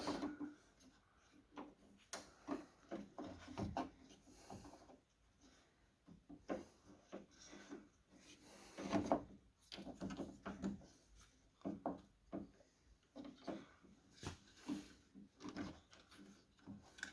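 Irregular clicks, knocks and rattles of the lock rod and latch parts being worked by hand inside the open door of a 2008 Kia Sorento, some in quick clusters.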